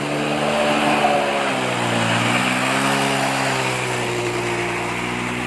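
An engine running, its pitch sagging about two seconds in and then climbing again.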